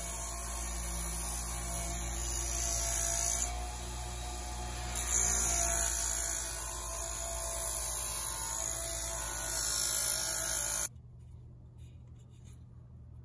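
Bench buffing-wheel motor running with a steady hum while a metal trim strip is pressed against the spinning cloth wheel, giving a high polishing hiss that drops briefly about four seconds in. The sound cuts off suddenly about eleven seconds in, leaving faint room tone.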